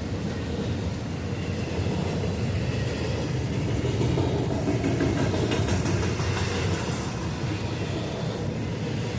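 Cars of a CSX intermodal freight train rolling past on the rails, a steady low rumble of wheels and cars going by, with a second freight train passing on the other track.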